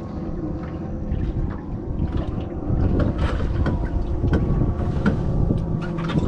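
Wind buffeting the microphone and water sloshing around the hull of a small boat drifting with its motor off, with scattered small clicks and knocks.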